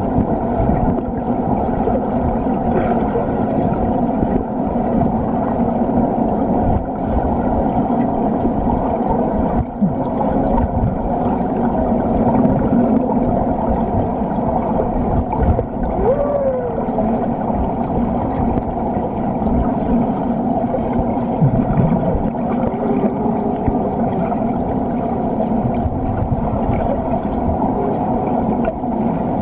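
Underwater pool sound picked up by a submerged camera: a steady, muffled rumble and hum of water, with one brief gliding squeal that rises and falls about sixteen seconds in.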